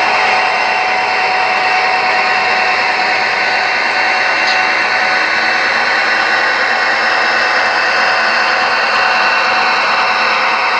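HO scale model freight train rolling past on its track: a steady whirring rush of wheels on rail and running gear, with a faint steady whine.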